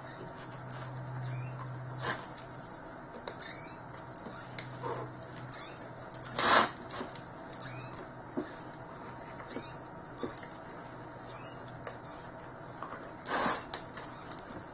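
Gloved hands shifting a coastal carpet python's coils off her clutch of eggs in a plastic tub: soft rustles and light knocks, the loudest a brief rustle about six and a half seconds in. Behind it, a high wavering chirp repeats about every two seconds over a low steady hum.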